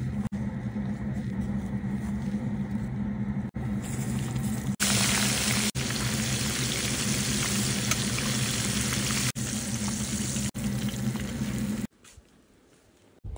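Fish frying in a pot of hot oil: a loud, even sizzle starts about five seconds in, runs for about seven seconds and cuts off sharply near the end, over a steady low hum.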